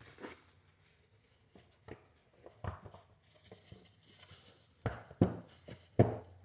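Plastic cover on a Kia's engine bay being pressed back into its clips: a handful of sharp clicks and knocks, the loudest three coming in the last second and a half. The clicks are the sign that the cover is seated and locked.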